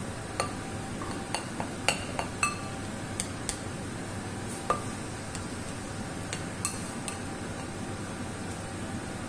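Wooden spoon stirring and breaking up couscous in a ceramic bowl, knocking against the bowl in a dozen or so irregular clinks. The bowl rings briefly after the louder knocks, over a steady background noise.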